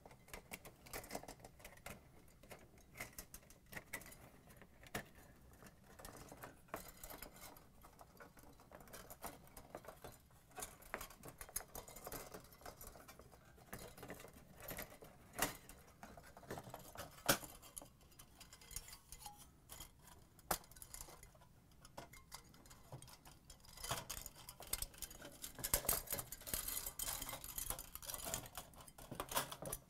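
Faint, scattered light metallic clicks, taps and scrapes as an aluminum refrigerator defrost heater is worked by hand out of the evaporator's tubes and fins, busier near the end.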